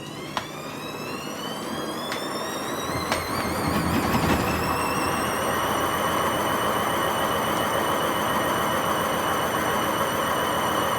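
Hotpoint WMA50 washing machine drum accelerating into spin. A whine rises in pitch over the first four seconds and then holds steady at full speed over a harsh rumble, with a few sharp knocks early on. The noise comes from very bad drum bearings, with the machine running without its ballast.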